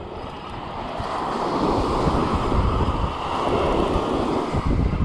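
Surf washing onto the beach, swelling from about a second in, with wind buffeting the microphone.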